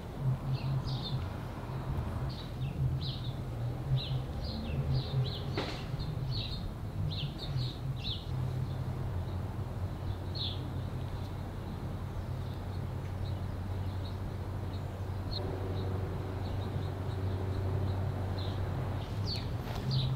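Small birds chirping outdoors: short high calls, many in quick succession over the first eight seconds and sparser after, over a steady low rumble.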